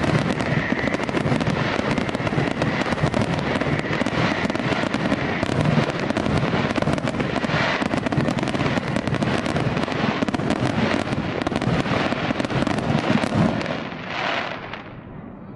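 Fireworks going off in a dense, continuous barrage of bangs and crackles that starts abruptly and dies away near the end.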